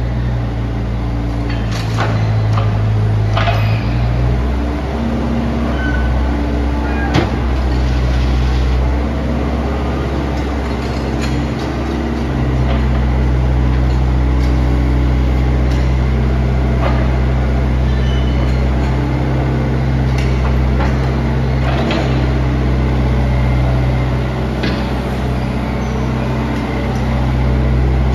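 2014 JCB 8061CTS midi excavator's diesel engine running steadily while the boom, arm and bucket are worked. The engine note changes a few times, about four seconds in and again about twelve seconds in, with occasional sharp knocks.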